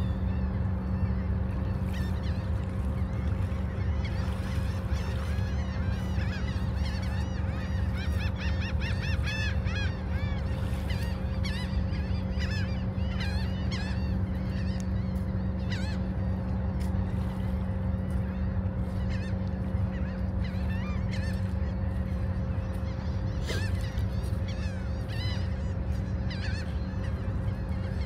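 A flock of gulls calling, many short rising-and-falling cries that come thickest about a third of the way in and again near the end, over a steady low hum and rumble.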